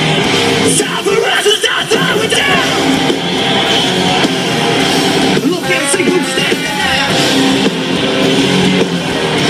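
Live rock band playing loud through the PA, with electric guitars, heard from within the audience.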